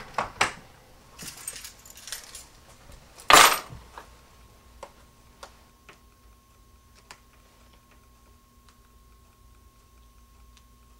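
Jingling and clicking of small hard objects being handled, with a short loud rustling burst about three seconds in. Then a faint steady electronic tone comes on and holds, with scattered soft ticks.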